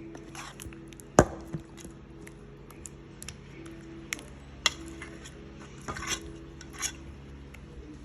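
Kitchenware being handled: a sharp knock about a second in, then several lighter clinks and knocks of a bowl and utensils, with brief soft scraping among them.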